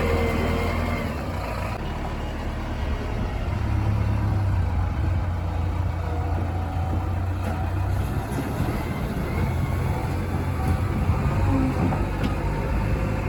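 Diesel engine of a JCB 3DX backhoe loader running steadily under work, its low rumble growing a little louder about four seconds in.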